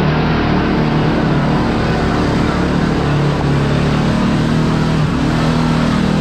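Kawasaki Teryx KRX4 1000 side-by-side's engine running steadily on the trail, its pitch wavering up and down a little with the throttle.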